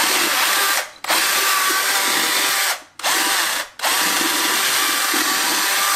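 Cordless drill with a mixer beater in its chuck, whirring inside a pumpkin as it churns out the pulp and seeds. The trigger is let go and pulled again three times, and each restart rises in pitch as the motor spins up.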